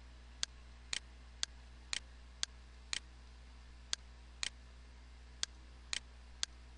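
Evenly spaced sharp ticks, about two a second with an occasional one missing, over a steady low hum.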